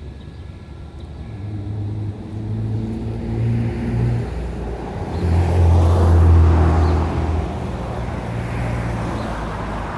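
A road vehicle passing by, its engine and tyre noise swelling to a peak about six seconds in and then easing off.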